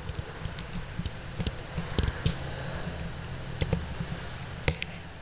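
Scattered sharp clicks and taps, several in close pairs, over a steady hiss and low rumble.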